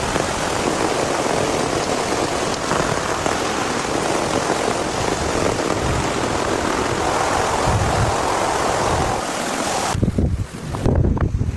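Steady hiss of heavy rain. About ten seconds in it cuts off abruptly, replaced by gusty wind buffeting the microphone.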